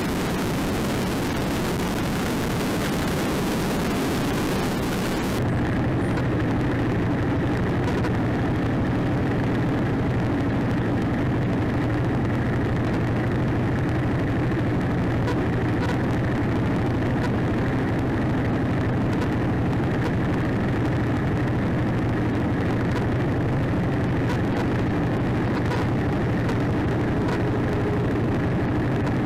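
Motorcycle heard through a handlebar-mounted dashcam's own microphone: a steady rush of wind noise while riding at speed, then, after a cut about five seconds in, the engine idling steadily while stopped at a light.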